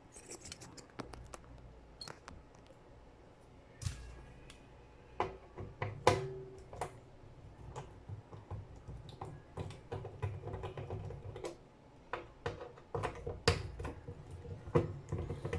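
Irregular light clicks and taps as a small display circuit board is handled and fitted back against an inverter's sheet-metal front plate.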